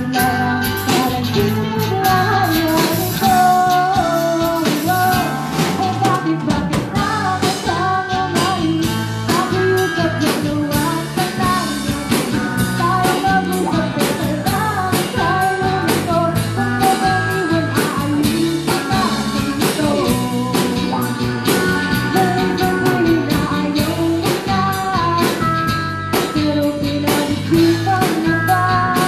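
Live band music: a woman singing into a microphone over electric guitar and drums, amplified through a PA speaker.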